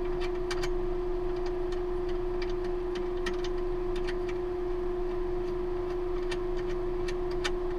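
Irregular sharp clicks of a protective cap being fitted by hand onto a valve fitting, over the steady hum of the space station's ventilation fans, which holds one constant low tone.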